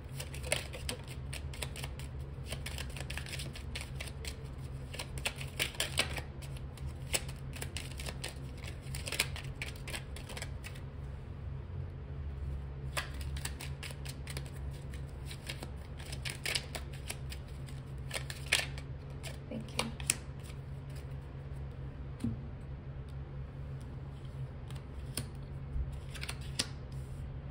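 A tarot deck being shuffled by hand while cards are drawn: a quick run of crisp card clicks and flicks for the first ten seconds or so, then scattered single card snaps. A steady low hum runs underneath.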